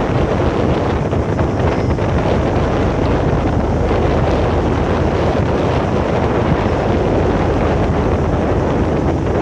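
Wind blowing hard across the microphone, a steady rushing noise, over the low steady drone of the car ferry MV Armorique's engines.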